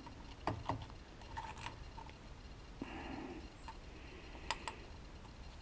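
A few faint light clicks and a soft rustle as small engine parts are handled by gloved hands.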